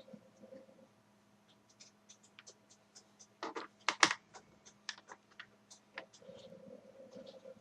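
Small screwdriver clicking and scraping against the plastic case of an HP DV6000 laptop as the screws on its back are taken out, in scattered light ticks with a louder clatter about three and a half to four seconds in.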